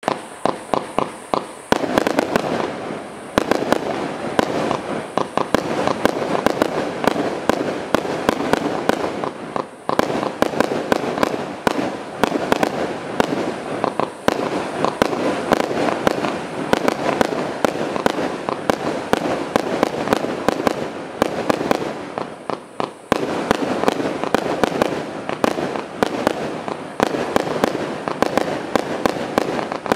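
Celtic Fireworks' Glimmer Glamour, a 100-shot, 20 mm firework cake, firing in rapid volleys: a quick run of launch pops and small bursts, broken by a few short lulls between sequences.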